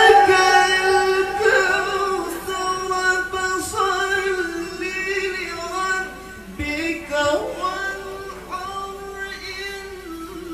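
A male qari reciting the Quran in melodic tilawah style into a microphone: long, ornamented notes sung high, wavering and bending in pitch, gradually growing softer.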